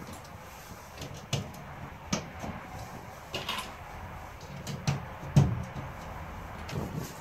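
Several irregular light knocks and taps as a thin laminated plywood panel is handled and pressed into place against the sheet-metal inner skin of a van's rear door, the strongest about five and a half seconds in.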